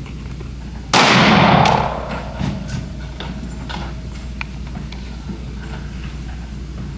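A single pistol shot about a second in, loud enough to overload the recording, dying away in an echo over about a second. A few small faint clicks follow.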